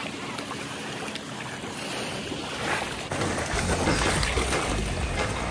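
Wind rumbling on the microphone over open water at a lakeshore, gusting harder about three seconds in.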